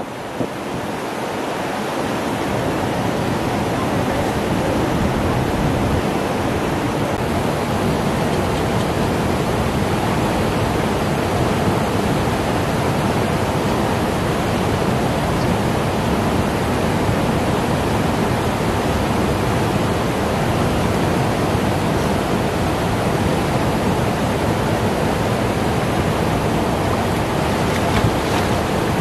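Steady rushing hiss of a fast river current flowing around rocks, with a brief splash near the end.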